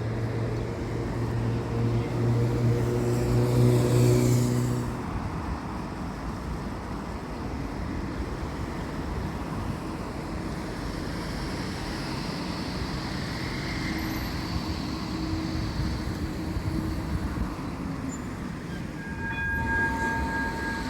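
Electric tram passing close on the tramway, its motors humming loudest about four seconds in before it runs on past. Steady rolling noise follows, and a few brief tones sound near the end.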